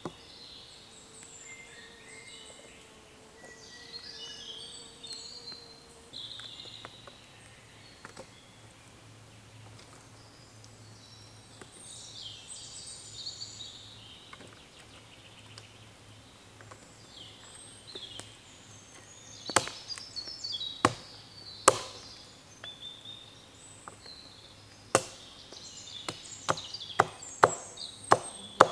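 Birds singing, then, from about two-thirds of the way through, sharp wooden chopping knocks of a knife blade striking a stick, irregular at first and about two a second near the end.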